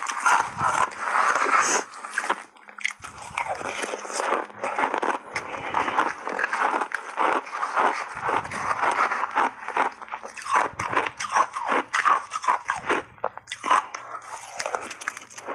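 Refrozen ice chunks coated in matcha tea and milk powder being bitten and chewed, a dense run of irregular crisp crunches and cracks.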